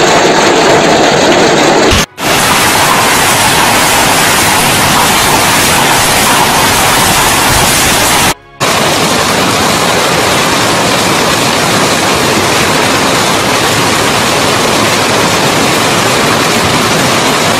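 Hail and heavy rain pelting down, a loud, dense, continuous clatter that cuts out briefly about two seconds and eight seconds in.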